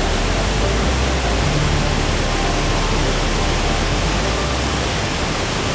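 Waterfall rushing over rock, a steady, loud, unbroken roar of water.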